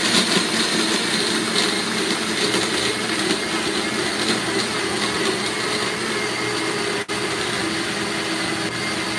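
Countertop blender running steadily at high speed, blending ice and sweet tea into a slushy frozen drink.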